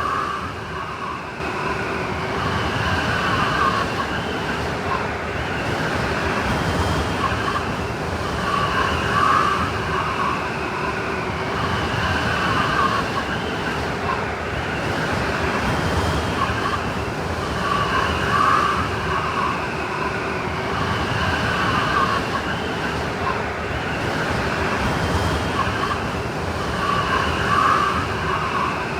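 Snowstorm wind blowing steadily: a continuous rushing hiss with wavering, whistling howls that swell and fade every few seconds.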